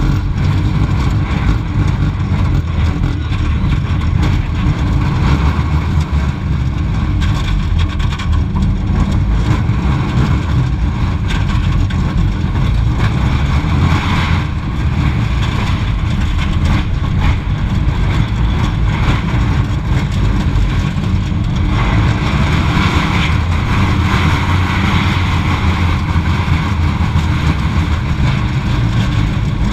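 Schwarzkopf Jet Star roller coaster car running along its steel track at speed: a steady loud rumble, with a higher rushing noise that picks up around the middle and again about two-thirds of the way through.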